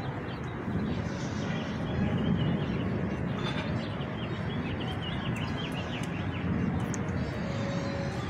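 Outdoor neighbourhood ambience: a steady low rumble with small birds chirping in quick, high twitters, in bursts about a second in and again from about four to six seconds in.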